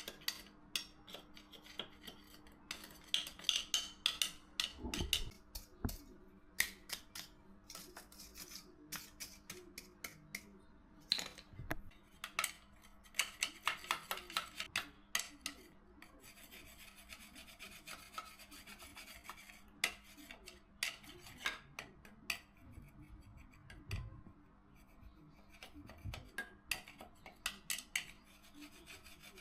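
Hand tool work: many short scraping strokes in irregular runs, like filing or scraping a part, over a faint steady hum.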